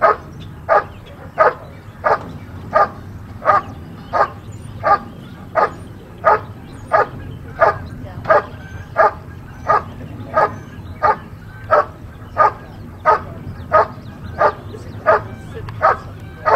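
German shepherd barking steadily at a helper hidden in a protection blind, in an even rhythm of about three barks every two seconds. This is the hold-and-bark of protection work: the dog has found the helper and guards him by barking without biting.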